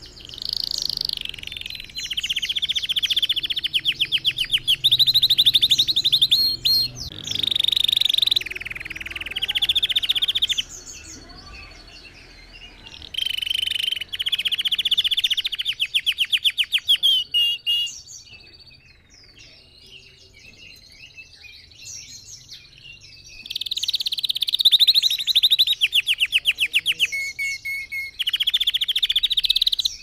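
Red factor canary singing: a long song built of fast trills and rolls, many quick repeated notes per phrase, in loud stretches broken by softer twittering, quietest about two-thirds of the way through.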